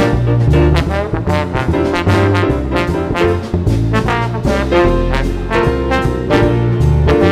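Jazz quartet playing live: a trombone carries the melody over double bass notes, piano and a drum kit with frequent cymbal strokes.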